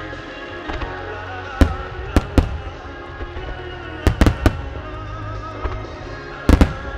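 Starmine aerial firework shells bursting in sharp, loud bangs that come in quick clusters: one, then two, then three, then two. Music plays throughout.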